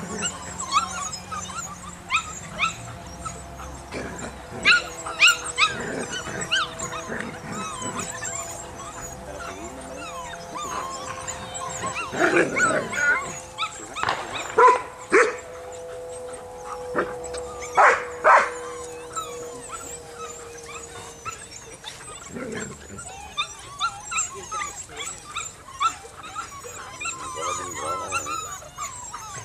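Six-week-old Belgian Malinois puppies yipping and barking as they play, in scattered short bursts, loudest a little before and a little after the middle.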